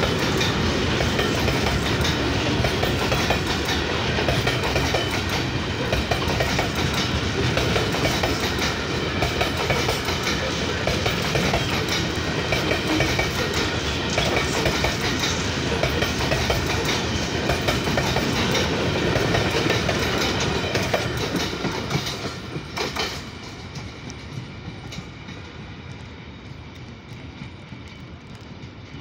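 Parcel train's covered wagons passing close at speed, their wheels clacking steadily over rail joints. The sound dies away about 22 seconds in, with one last clack, as the end of the train goes by, leaving a faint rumble.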